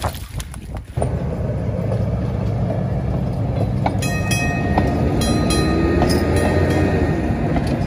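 Streetcar trolley running along its rails: a steady low rumble that starts suddenly about a second in, joined later by clicks and thin high whines from the running gear.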